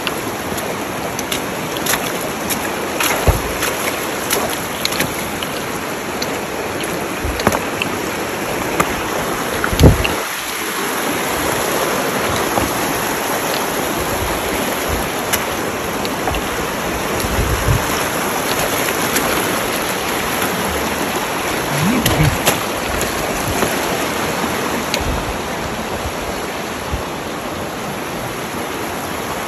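Stream water rushing steadily over rocks, with a few low thumps, the loudest about ten seconds in.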